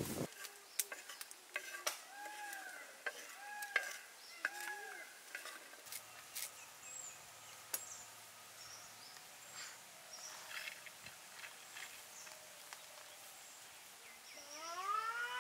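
Scattered light clicks and taps of a spoon and hands working with vegetables. Partway in, an animal gives the same rising-and-falling call three times, small birds chirp, and a rising animal call starts near the end.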